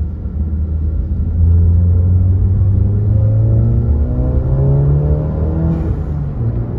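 Turbocharged 2.0-litre four-cylinder of a 2018 VW GTI with an aftermarket catted downpipe and turbo intake, heard inside the cabin, revving up under acceleration: the pitch climbs steadily for several seconds, then drops at a gear change near the end, with a brief hiss at the shift.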